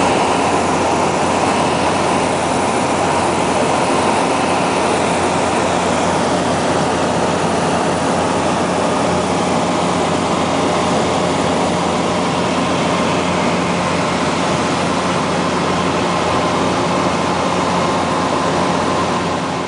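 Light aircraft's engine and propeller droning steadily, heard from inside the passenger cabin: a low hum and its overtones under a constant rushing noise. It begins to fade away near the end.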